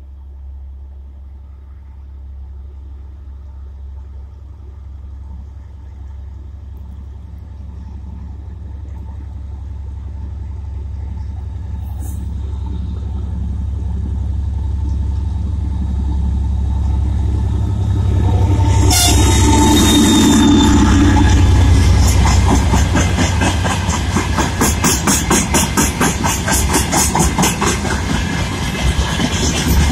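M62 diesel locomotive's two-stroke V12 engine, a low rumble growing steadily louder as it approaches and is loudest as it passes about two-thirds through. Its freight wagons then go by with a rapid, even clatter of wheels over the rails.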